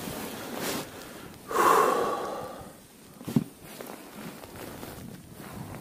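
A man's heavy sigh about one and a half seconds in, followed by a single short knock a little after three seconds.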